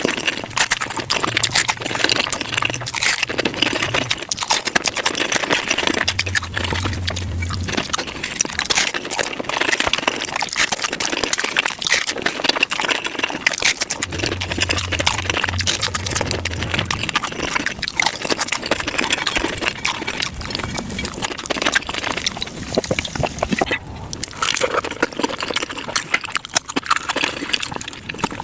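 Close-miked chewing and crunching of tacos, sped up about five times: a dense run of crisp crackles and wet mouth sounds.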